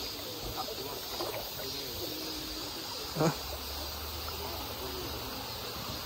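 Shallow rocky mountain stream running steadily, with a steady high insect drone and faint distant voices; one short knock stands out about three seconds in.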